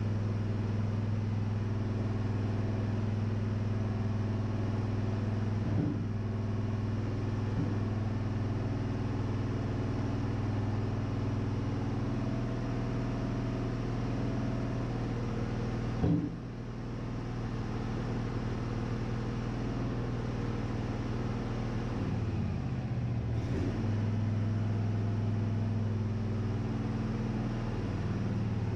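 Wood-Mizer engine running steadily at a constant pitch. There is a single sharp knock about halfway through, and the engine's pitch sags briefly and recovers a little later.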